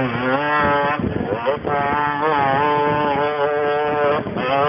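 Motorcycle engine revving hard as the bike climbs a steep dirt hill-climb slope. Its pitch rises and holds, falling off briefly about a second and a half in and again near the end.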